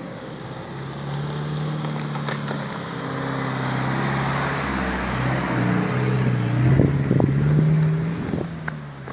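Engine of a mud-covered 4x4 pickup truck running as it drives slowly along a dirt track, its pitch rising and falling and growing louder as it comes close, with a burst of crackling as it passes nearest.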